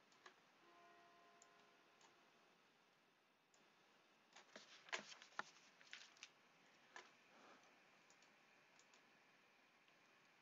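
Near silence with a cluster of faint computer mouse clicks about halfway through, as software menus are opened.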